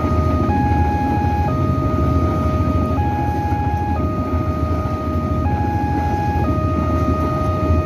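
Level-crossing warning alarm sounding: an electronic two-tone signal alternating steadily between a higher and a lower note, about a second on each, over a steady low rumble.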